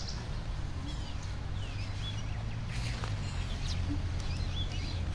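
Birds chirping now and then over a low, steady rumble of outdoor background noise.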